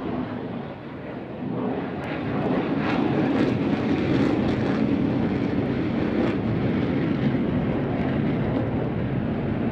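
Eurofighter Typhoon's two EJ200 turbofans with reheat (afterburner) lit as the jet pulls up into a climb. The jet noise swells about two seconds in and then holds loud and steady.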